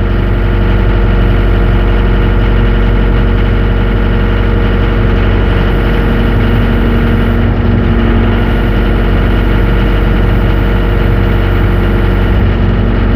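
Yanmar diesel engine of a 6.2-ton mini excavator running steadily while the upper structure swings through a full 360-degree turn.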